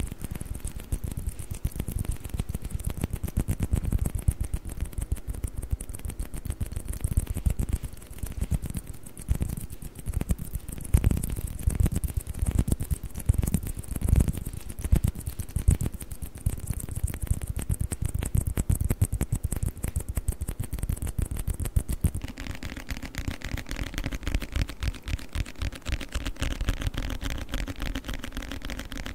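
Fast, dense tapping on table tennis balls, full of low knocks. About 22 seconds in it changes to quieter, even tapping on a book.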